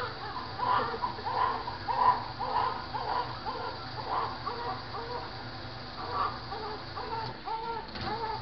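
Newborn baby crying in short, repeated cries, about two a second.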